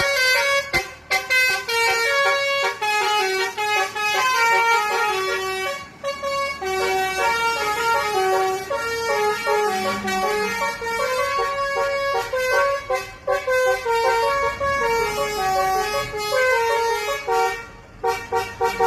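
Basuri telolet bus horn playing a quick melody of short honked notes that step up and down in pitch, with a few brief breaks.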